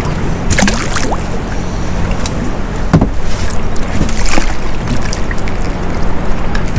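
Sounds aboard a small fishing boat on the water: a steady low hum under a constant wash of noise, with several sharp clicks and knocks from handling gear on the boat.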